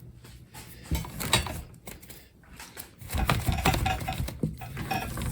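Clattering and rustling of a cardboard shipping box and its packing being handled, in two bursts: a short one about a second in and a longer one from about three seconds in.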